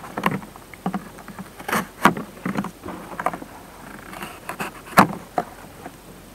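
Cardboard packaging being worked and slid off a hard plastic chainsaw case: irregular scraping, rustling and tapping, with sharper knocks about two seconds in and about five seconds in.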